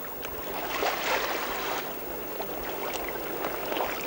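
Water rushing and trickling along the hull of a small gaff cutter under sail, swelling and easing with the boat's motion.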